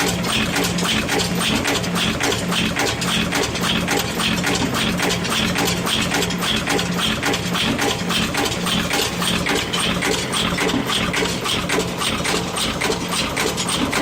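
Yeswin YBP10B5S five-station cold-heading bolt former running in production, its press ram striking in a fast, steady rhythm with a pulsing machine hum underneath.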